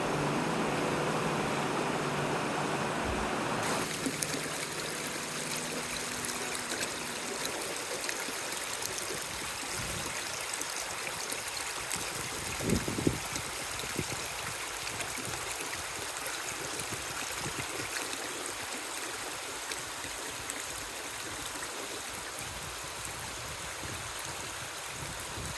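River water flowing steadily, a continuous rushing stream sound. Background music fades out over the first few seconds, and there are a couple of faint knocks about halfway through.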